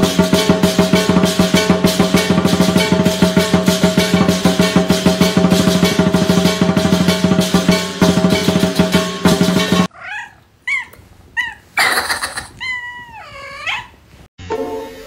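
Background music with a fast steady beat, cutting off about ten seconds in. A domestic cat then gives several short, bark-like calls, followed by a longer meow that dips and rises in pitch.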